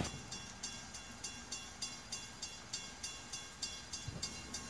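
Railroad grade-crossing bell ringing steadily, about three strikes a second, with light rain in the background.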